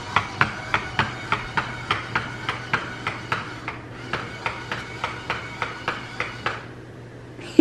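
Battery-powered crawling zombie-hand Halloween prop running its motion-activated routine: a rapid, even clicking of about four clicks a second over a steady low motor hum. The clicking stops near the end.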